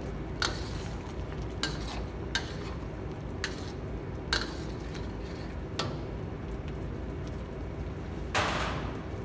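Metal ladle stirring a thick curry in a steel wok, scraping and clinking against the pan at irregular intervals about once a second, with a longer, louder scrape near the end, over a steady low background rumble.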